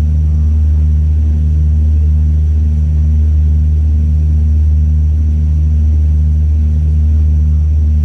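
Airliner engines and cabin noise heard from inside the passenger cabin while the plane moves along the runway: a loud, steady low rumble with a slow throb in the hum.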